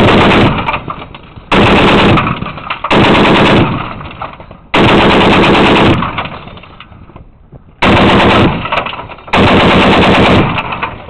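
M2 Browning .50-calibre heavy machine gun firing six short bursts, each about half a second to a second long, with a fading echo after each burst.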